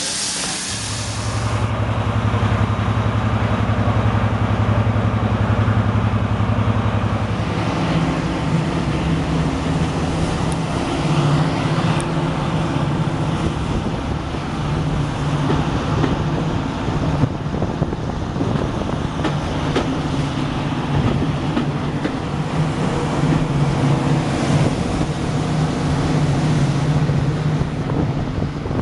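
Class 55 Deltic diesel locomotive's engines working hard as the train pulls away, heard through an open carriage window. The steady engine note steps up to a higher pitch about seven seconds in as the engines rev up, and then holds.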